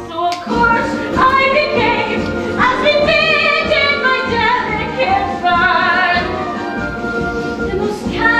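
A woman singing a musical-theatre song over orchestral accompaniment, with held notes that waver and a few upward slides into phrases.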